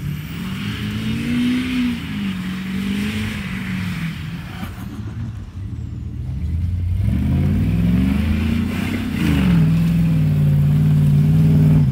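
Pickup truck engine revving up and down as it is driven hard across a field, in two swells with a lull between, then held high and steady near the end while the tyres spin and throw dirt.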